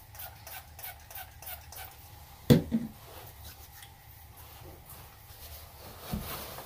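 A small pump spray bottle misting in quick squirts, about four or five a second for roughly two seconds. A single sharp thump follows a moment later, and a softer thump comes near the end.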